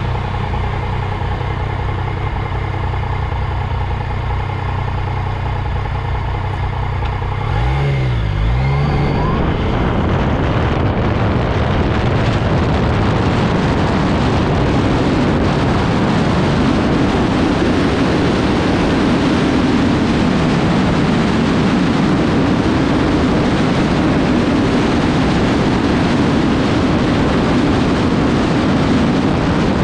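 Yamaha motorcycle engine idling at a standstill, then about eight seconds in it pulls away and revs up through the gears. After that it cruises at highway speed, the engine drone buried under a steady rush of wind and road noise.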